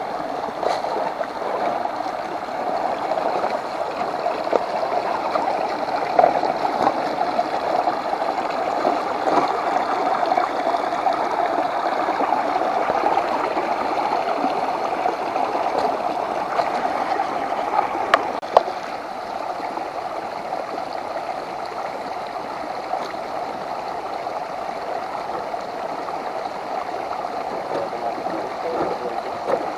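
Steady gurgling rush of running water, with a couple of sharp clicks about 18 seconds in.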